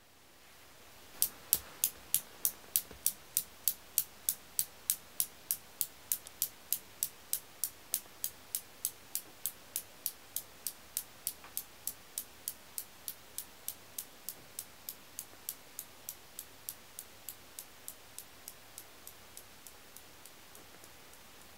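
Newton's cradle's metal balls clicking against each other, about three sharp clicks a second. The clicks start about a second in and slowly fade as the swing runs down, dying out near the end.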